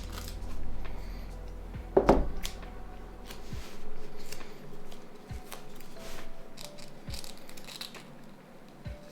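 Small handling sounds of hands working on a plastic phone part at a bench: scattered clicks, taps and rustles, with a louder knock about two seconds in. A low hum stops about three and a half seconds in.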